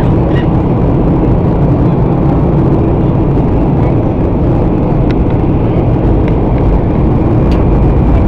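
Steady, loud cabin noise of a jet airliner on descent: engine and airflow heard from inside at a window seat beside the engine, with a few faint ticks.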